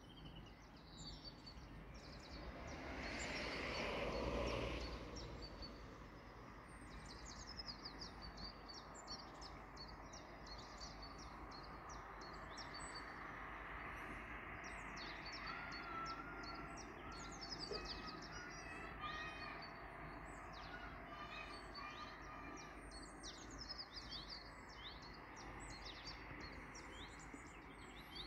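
Birds chirping and twittering continuously over a steady outdoor background hum. A louder rushing sound swells and fades a few seconds in.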